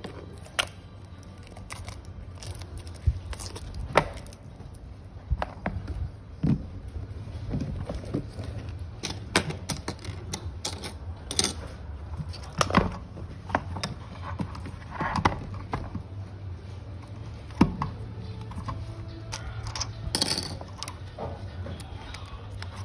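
Irregular clicks, taps and light scrapes of hands handling a cardboard box, a small circuit board and a flat ribbon cable on a silicone work mat, over a steady low hum.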